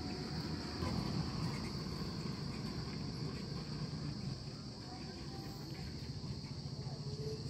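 Insects chirring steadily in one high, even band, with no break.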